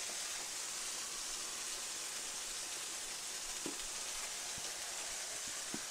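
Sausages frying in a cast-iron skillet: a steady, even sizzle, with a few faint ticks in the second half.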